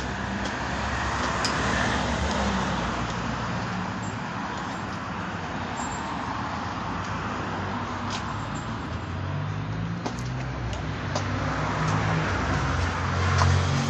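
Steady road traffic noise with a low engine hum that grows in the last few seconds, and a few light clicks.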